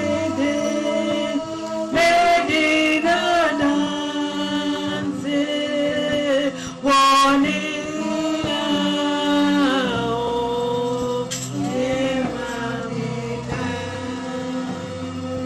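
Church choir singing a gospel song, with long held notes.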